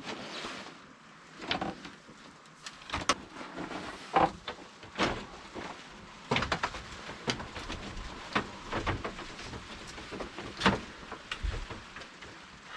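Irregular knocks and clicks, about a dozen sharp ones, with rustling between them; the loudest come around 4, 5 and 11 seconds in.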